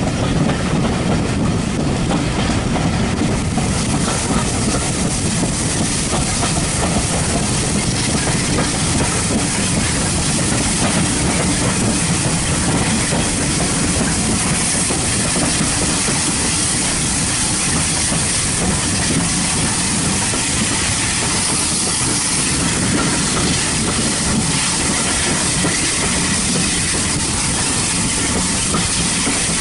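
Steam train running, a steady rumble with a hiss of steam that grows stronger a few seconds in and then holds.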